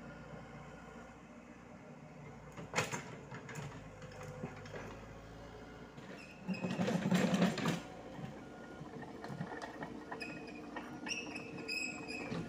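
Komatsu PC78US mini excavator's diesel engine running steadily as the machine digs, with a sharp knock about three seconds in and a louder stretch of noise from the bucket working earth and rock about seven seconds in.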